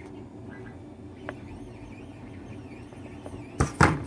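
Plastic 3D-printed armour pieces handled on a workbench: a faint click about a second in, then two loud knocks in quick succession near the end, over a low steady background hum.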